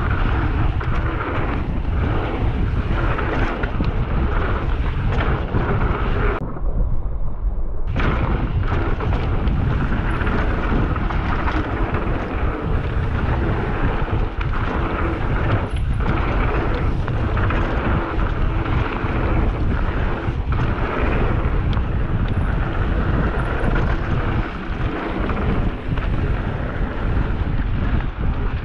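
Wind rushing and rumbling over a GoPro's microphone as a mountain bike rolls fast down a dirt trail, with frequent knocks and rattles from the bike over bumps. About six and a half seconds in the sound turns muffled for a second or so.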